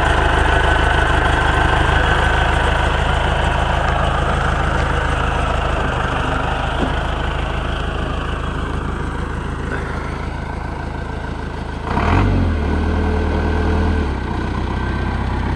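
A vehicle engine running steadily with a low hum; about twelve seconds in it briefly grows louder and its note shifts for a couple of seconds before settling again.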